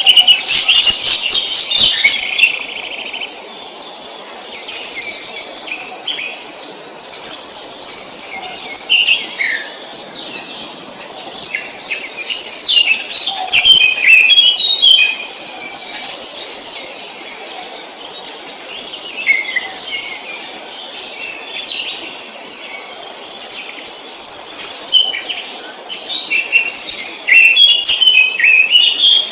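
Several songbirds singing at once in a spring chorus: overlapping chirps, trills and whistled phrases, busiest in the first few seconds.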